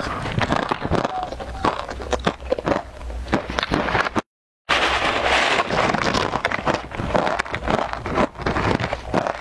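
Crunching of crispy fried snack sticks eaten straight from a crinkling snack bag, a dense run of crackly bites and rustles. The sound cuts out briefly about four seconds in.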